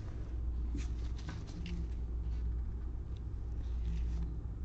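Faint rustling and light sliding of trading cards handled in gloved hands, a few soft scrapes scattered through, over a steady low hum.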